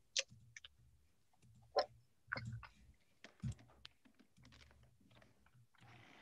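Scattered plastic clicks and knocks of a food processor being handled, its lid opened and fitted back on, with the motor stopped.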